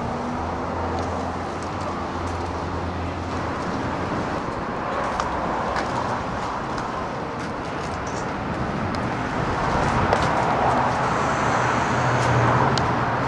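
Road traffic noise with a motor vehicle engine running close by, its low hum getting louder in the last few seconds, and a few light clicks.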